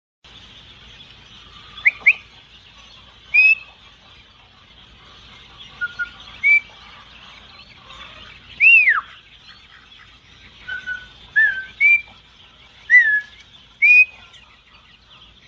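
A flock of ducklings peeping without a break, under about ten loud whistled notes spaced a second or two apart, mostly short, some rising, and one long falling note about halfway through.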